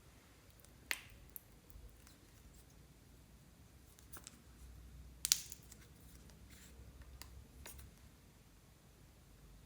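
Slime being handled up close, giving a few sharp clicks and small crackles over a faint low hum. The two loudest clicks come about a second in and about five seconds in.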